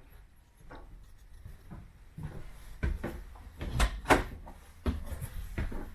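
A series of knocks and thumps, the loudest about four seconds in, over a low rumble: someone moving about inside a travel trailer and handling an interior door.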